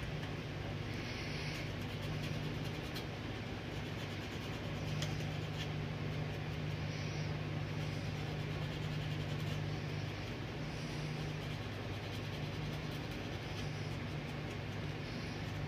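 Sandpaper rubbing the coating off a controller circuit board's copper traces in short, intermittent strokes, over a steady low hum.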